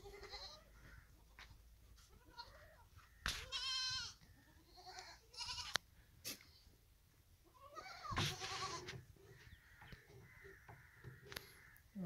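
Goats bleating: a long, wavering bleat about three seconds in and another about eight seconds in, with a few shorter calls between.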